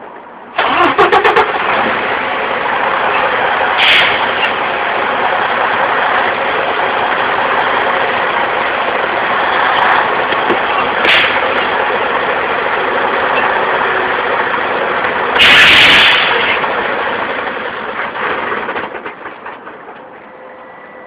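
A semi truck's diesel engine starts about half a second in and runs while the truck is eased forward a little, with three short hisses of air, the loudest a little past halfway. Near the end the engine noise dies away.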